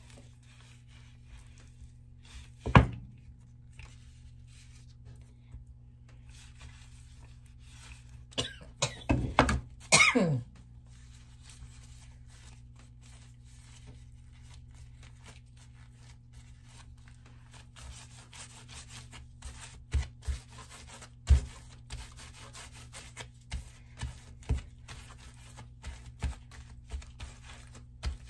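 Dough being rolled and pressed on a countertop with a rolling pin and a plastic-gloved hand: a sharp knock about three seconds in, then from about eighteen seconds a run of soft irregular thuds with plastic rustling. A few short vocal sounds around nine to ten seconds, over a steady low hum.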